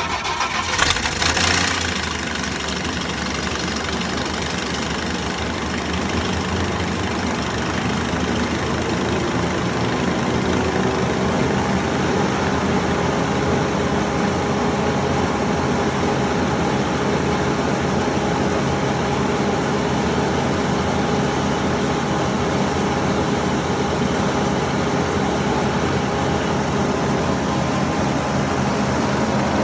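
Wood chipper's engine running steadily after a loud burst of noise about a second in, its pitch creeping up slightly around ten seconds in.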